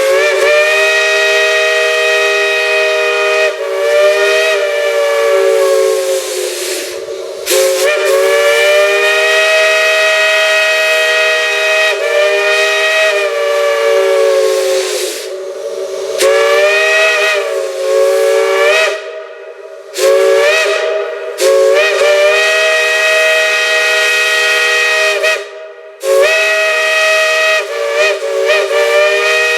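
Multi-chime steam whistle sounding a chord in about six long blasts with short breaks between them. The pitch sags and bends as each blast opens and closes, with steam hiss under the tone.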